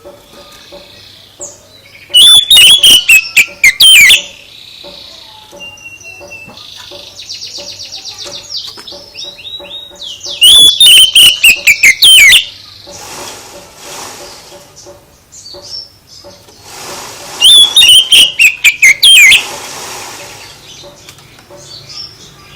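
Songbird singing three loud bursts of rapid, sharp, falling chirps, each about two seconds long. Softer warbling and a quick trill fill the gaps between bursts.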